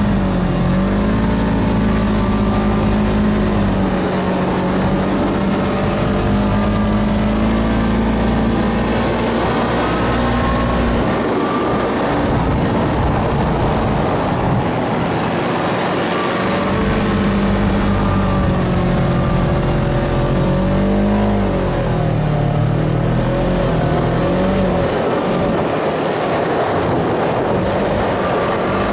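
Side-by-side dune buggy's engine running under load, heard from on board, its pitch wavering as the throttle changes and dipping and climbing again about three quarters of the way through.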